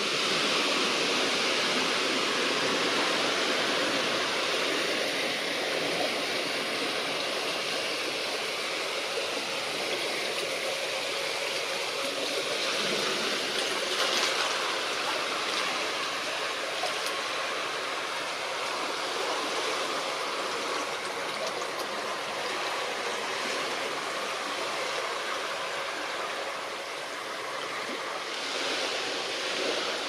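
Steady rush of river water flowing and rippling over the shallows, a constant hiss without breaks.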